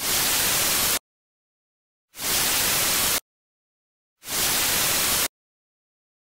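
Television static hiss in three bursts of about a second each, cut off sharply with dead silence between them.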